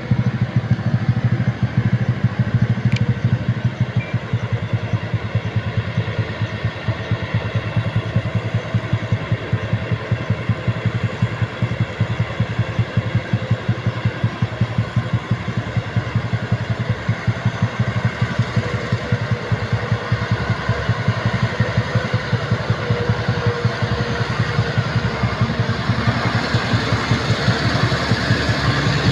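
Truck engines running with a steady low rumble and a fast, even pulse, getting louder near the end as a line of loaded trucks rounds the hairpin bends close by.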